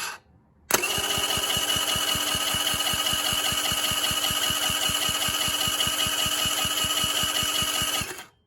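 Starter cranking a new Trail Master engine for a compression test, beginning about a second in and stopping near the end. It runs at a steady pace of about six even beats a second, with a steady whine over them. The engine has too little compression to start, which is why these engines won't run.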